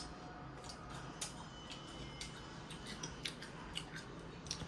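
Faint crisp clicks and crunches, irregular and a few a second, of a person chewing a bite of raw rose apple, over a low steady hum.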